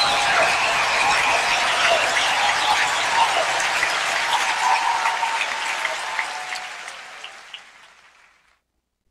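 Congregation applauding, a dense patter of clapping that fades out to silence about eight seconds in.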